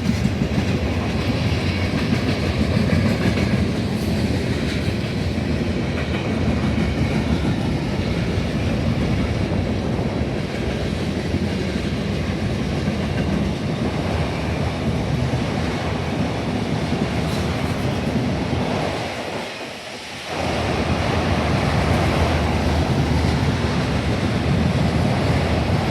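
Freight cars of a manifest train rolling past, a steady loud noise of steel wheels on rail. The sound drops away briefly about twenty seconds in, then picks up again.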